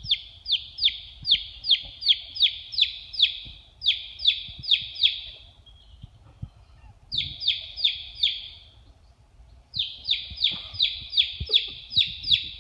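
A baby chick peeping loudly and insistently while held in a hand: rapid high peeps, about three a second, each dropping in pitch, typical of a chick's distress call. The peeps come in runs, with a pause of a couple of seconds near the middle.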